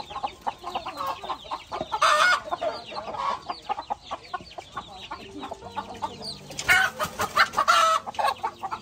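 Chicks peeping constantly: a dense stream of short, falling cheeps. Two louder, longer calls from an adult chicken cut through, one about two seconds in and one near the end.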